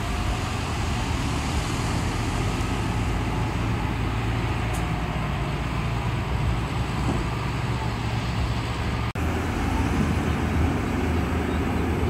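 Heavy diesel engine of a loaded Hyundai Trago dump truck running as it drives over sand, a steady low rumble, with a momentary break in the sound about nine seconds in.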